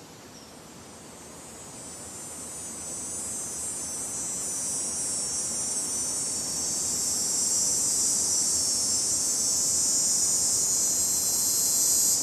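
Dense, high-pitched insect chorus, a summer drone typical of cicadas, swelling steadily louder.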